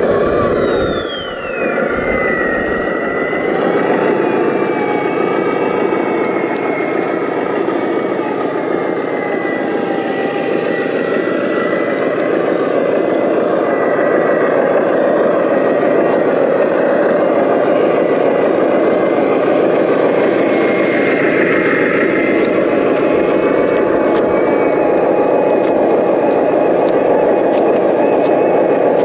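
Radio-controlled model construction vehicles running: a steady mechanical whine from motors and gearing. The pitch drops sharply about a second in, then holds with small rises and falls.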